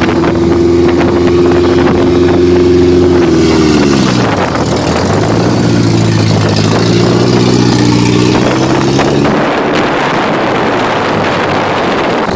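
Lifted Toyota pickup's engine revving and held at high revs, dropping off about three and a half seconds in, then revving up and held again before easing off near the ten-second mark. Wind buffeting the microphone fills the rest.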